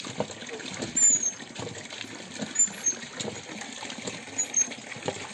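Water splashing and irregular clicks and knocks as live blue swimmer crabs are handled and washed on a steel plate.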